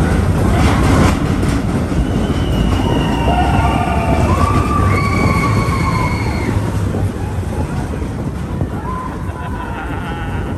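Expedition Everest roller coaster train running along its track: a loud, steady rumble with several high, drawn-out squeals in the middle.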